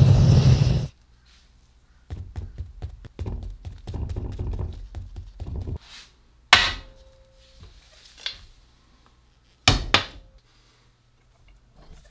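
Homemade venturi gas burner firing into the forge with a steady rushing noise, which cuts off just under a second in. After a moment's quiet come a few seconds of rattling and clicking, then several sharp hard knocks. The first knock rings briefly like struck metal, and two more fall close together later on.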